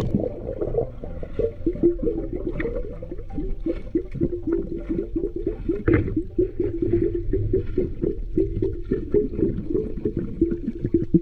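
Continuous rapid bubbling and gurgling of water, heard with the microphone underwater during a dive, with a sharper knock about six seconds in.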